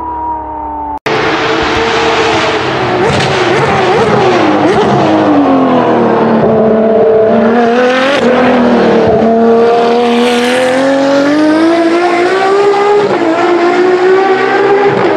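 Ferrari 599XX track car's V12 driving past on a circuit, loud, its revs rising and falling with the throttle and gears, with a few sharp pops from the exhaust. It starts abruptly about a second in, after a different engine note cuts off.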